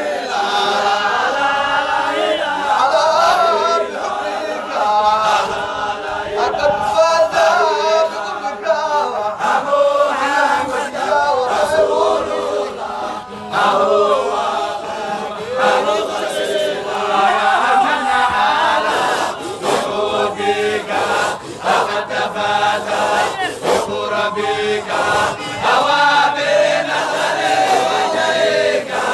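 A group of voices chanting together in a Sufi dhikr.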